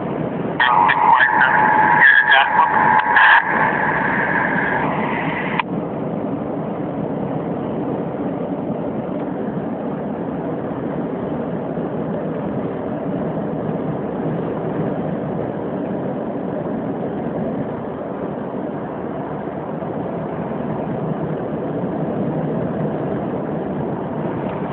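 Steady road and engine noise inside a moving car's cabin. During the first five seconds a high pitched sound with several breaks rides over it, then cuts off suddenly.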